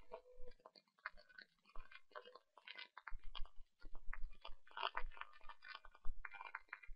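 Faint, irregular crackling and clicking close to the microphone, with a low rumble under it in the second half.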